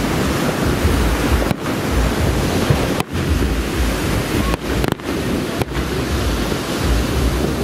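Wind buffeting the microphone: a loud, steady rush with heavy low rumbling, cutting out for an instant about five times.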